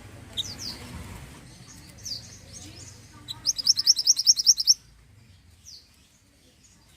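Mantenan songbird calling: scattered high, down-slurred chirps, then a loud, fast trill of about a dozen notes from about three to five seconds in.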